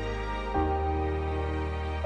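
Slow, sad background music of held chords over a deep bass note, changing chord about half a second in.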